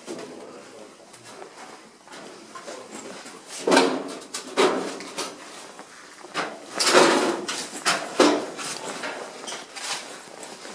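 A handful of short, loud scraping knocks between about four and eight seconds in, loudest around seven seconds, over a faint background hiss.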